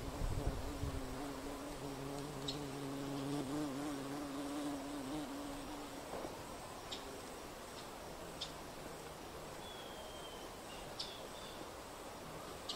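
A flying insect buzzing steadily with a slightly wavering pitch for about the first six seconds, then fading out. A few short, high chip notes from a bird are scattered through, with a brief thin falling whistle about ten seconds in.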